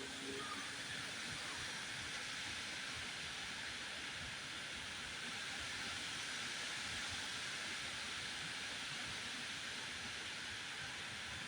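Strong wind blowing, a steady even hiss with a faint fluttering rumble underneath.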